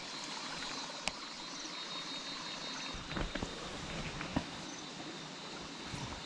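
Shallow paddy-field water splashing and dribbling as a hand searches through it among weeds, with a few soft clicks. A faint steady high insect drone runs underneath.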